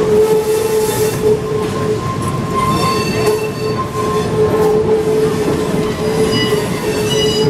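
Train wheels running on the rails with a steady noise and tone, squealing in high tones against the rail about three seconds in and again near the end.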